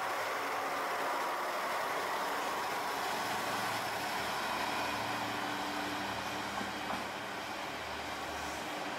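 Diesel railcar pulling away along the track, its running noise fading slowly. From about halfway through, a low steady engine hum comes in from a second diesel railcar approaching.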